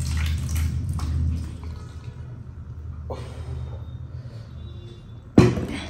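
Thick mutton curry sliding and dripping out of a tilted steel pan onto a serving platter, with a low rumble in the first second or so and a few soft clicks. A sharp knock comes near the end.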